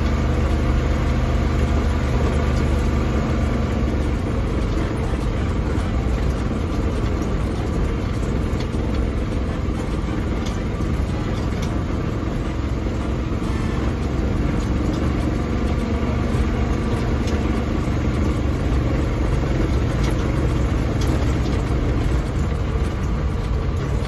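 Vehicle engine running steadily, heard from inside the cab while driving, with a few faint rattles.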